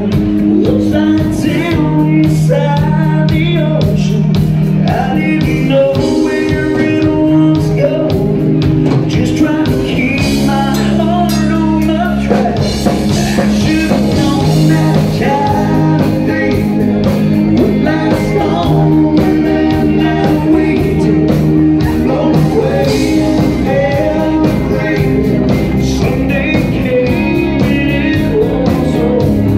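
A live country-rock band playing a song: a man singing lead over electric guitar, bass guitar, drum kit and keyboard with a steady beat.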